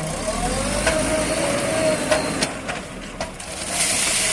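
Backhoe loader's diesel engine working under load, with a whine that rises and falls, a few sharp knocks, and a rushing hiss building near the end.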